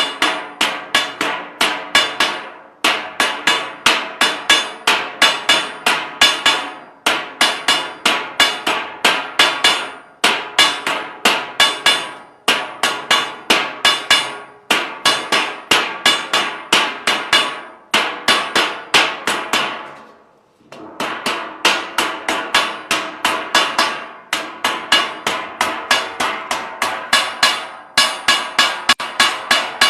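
Rapid hand-hammer blows, about three a second, each ringing briefly, in runs broken by short pauses and a longer pause about twenty seconds in.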